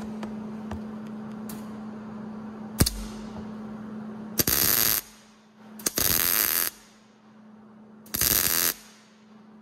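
MIG welder striking three short welds, each burst of arc lasting half a second to a second, tacking a steel spark plug shell to a thread adapter. A steady low hum runs underneath.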